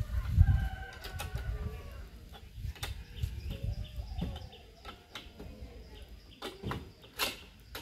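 Scattered knocks and clicks as wooden loudspeaker cabinets are shifted and adjusted on a tall stack, over a low rumble. Faint bird chirps sound in the background.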